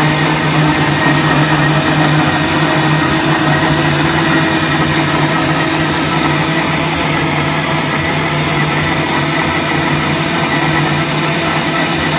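Countertop blender running steadily at one speed, puréeing cucumber, oats, honey and olive oil into a thin liquid, its motor giving a steady low hum under the whir.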